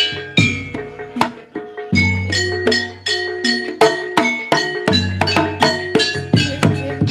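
Javanese gamelan music for a jaranan gending: bronze metallophones and gong-chimes struck in a quick, steady run of ringing notes. Long, deep tones come in about two seconds in and again near five seconds.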